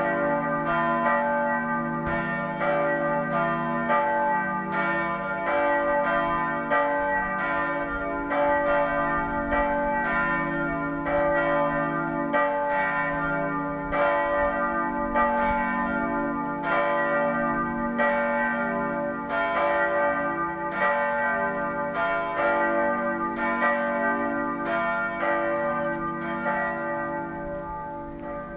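Two church tower bells, the small bell (cast 1890 by Bergholtz, 125 cm, about 1200 kg) and the middle bell (18th century, 140 cm, about 1955 kg), ringing together in a steady run of overlapping strokes. This is the Swedish sammanringning, the joint ringing that calls people to the service. It grows a little quieter near the end.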